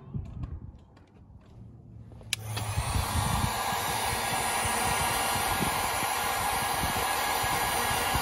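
Handheld heat gun switched on with a click about two seconds in, its fan blowing steadily as it shrinks a heat-shrink seal over a freshly soldered wire splice; it cuts off suddenly at the very end.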